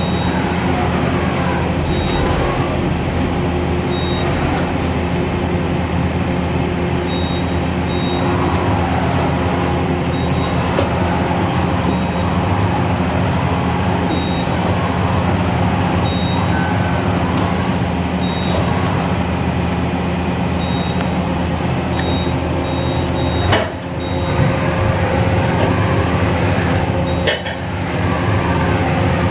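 Okuma MA60HB horizontal machining center running: a steady machine hum with whines that rise and fall again and again as its axis drives move the spindle head, and short high beeps every second or two.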